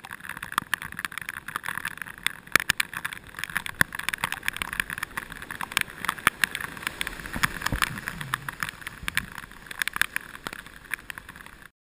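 Rain and spray pattering on a boat-mounted camera's waterproof housing: a steady hiss dotted with many irregular sharp ticks, cutting off suddenly near the end.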